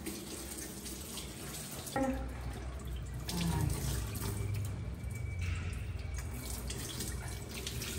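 Water running from a tap and splashing into a sink, steady, growing fuller about two seconds in.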